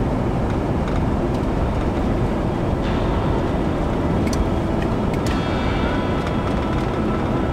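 Camper van driving along a road, heard from inside the cab: steady engine and road noise, with a few light clicks.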